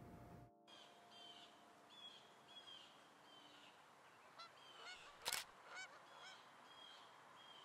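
Faint outdoor birdsong: short chirping calls repeated throughout. A single sharp camera shutter click about five seconds in, the loudest sound.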